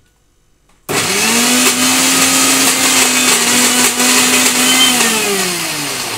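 Electric mixer grinder (mixie) switched on about a second in, its motor running steadily at a fixed pitch while grinding cooked toor dal and jaggery into a fine paste, then spinning down with a falling pitch near the end.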